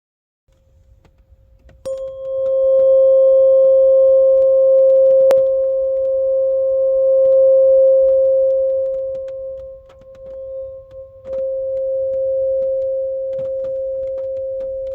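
528 Hz tuning fork struck about two seconds in, ringing as a steady pure tone with faint higher overtones. A sharp click comes about five seconds in, and the ring dips around ten seconds in before coming back. Faint scattered ticks of raindrops sound underneath.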